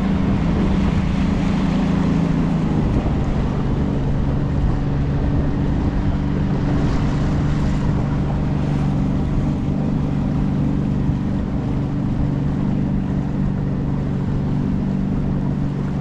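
A small motorboat's engine running steadily under way, a steady hum that settles slightly lower about two and a half seconds in, with water rushing along the hull and wind on the microphone.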